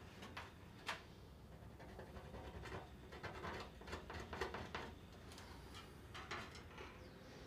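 Faint, scattered scratching strokes and light ticks of a pencil marking measurements on a steel sheet.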